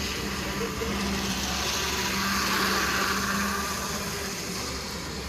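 A small N scale model train running on the layout, its motor and wheels whirring louder as it passes, peaking about halfway through and fading, over a steady hum.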